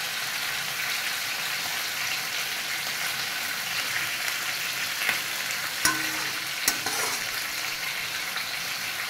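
Chopped onions and whole spices sizzling steadily in hot oil in a kadhai while a spatula stirs them. Two sharp clicks, the spatula knocking on the pan, come a little past halfway.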